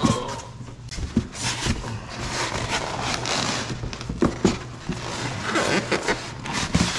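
Cardboard carton flaps and foam packing blocks being handled and slid against each other: rustling and scraping, with a few light knocks as the box is shifted.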